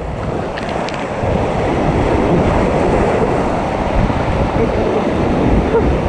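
Whitewater rapids rushing and splashing steadily around a raft, with wind on the action-camera microphone.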